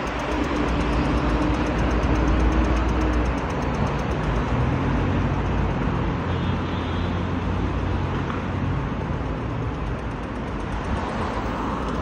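Road traffic on a multi-lane city street: cars passing, a steady wash of engine and tyre noise, with heavier engine hum in the first few seconds.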